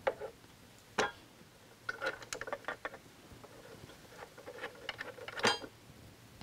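Scattered light clicks and taps of small metal bolts and a tube of Loctite threadlocker being handled while the threads are coated. The sharpest click comes about a second in and another near the end.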